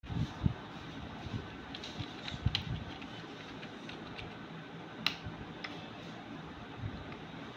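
Typing on a laptop keyboard: scattered, irregular key clicks, a few louder taps, over a faint steady hiss.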